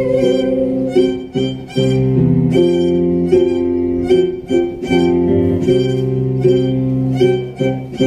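Violin playing a melody in short phrases over piano accompaniment.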